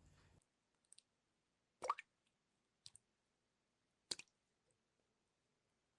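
Faint water drops plopping into water, four single drops about a second apart; the loudest, about two seconds in, has a short upward-sweeping 'plop'.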